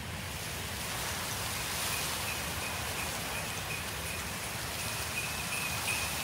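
A steady rushing hiss, with jingle bells coming in faintly about two seconds in and growing clearer toward the end.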